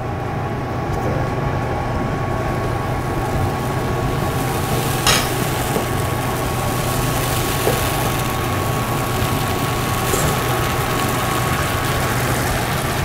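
Buckwheat galette batter sizzling in olive oil in a hot frying pan, the sizzle building over the first few seconds as the batter spreads and sets. The sizzle is the batter's moisture cooking off. A steady low hum runs underneath, with a single sharp click about five seconds in.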